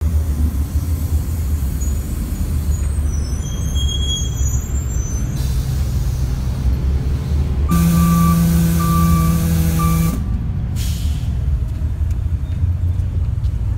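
A 2005 Orion VII natural-gas transit bus pulls in and stops, its engine giving a low steady rumble. A high brake squeal comes about three seconds in, followed by air hissing from the brakes. Around eight seconds in there is a louder burst of air with a pitched hum for about two seconds, then a short hiss about eleven seconds in as the door opens.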